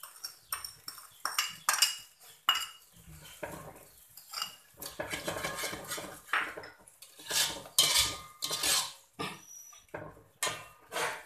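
Metal slotted spatula scraping and clanking against a metal wok and a plate, irregular clinks and scrapes with a short metallic ring, while chilli sambal is seasoned and stirred.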